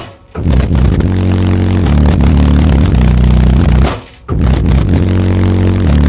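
Loud bass-heavy music played through a car audio system of nine CT Sounds EXO subwoofers powered by three B2 Audio M1 amplifiers, with long held low bass notes. The sound cuts out briefly twice, near the start and about four seconds in.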